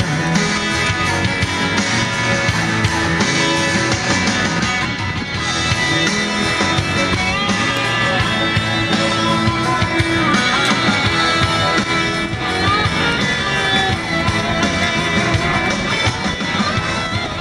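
Rock music with guitar, an instrumental stretch with no singing.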